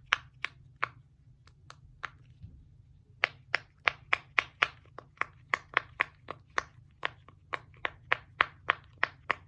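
Bubbles of a silicone pop-it fidget toy shaped like gingerbread men being pressed one after another, each giving a sharp pop, about three a second, with a short pause about a third of the way in.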